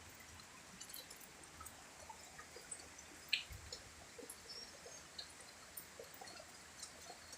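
Rain: a faint steady hiss with scattered drips and ticks of falling water, and one louder tap about three and a half seconds in.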